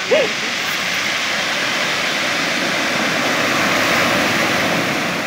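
Surf on a gravel beach: a wave breaking and rushing up the shore, the noise swelling to a peak about four seconds in and then easing. A brief voice-like call right at the start.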